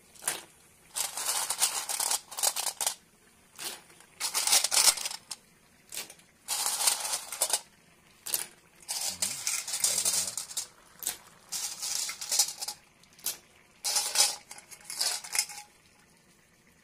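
Snail shells clattering against each other and against an aluminium pot as a hand scrubs and stirs them in water, in repeated rattling bursts a second or so long with short pauses between.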